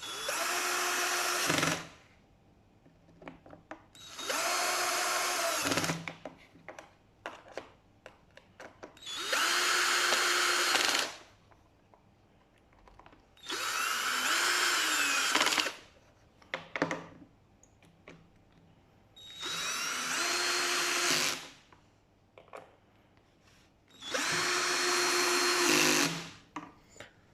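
Power drill run in six short bursts of about two seconds each, a few seconds apart, its motor whine rising in pitch at the start of each run and falling away as it stops.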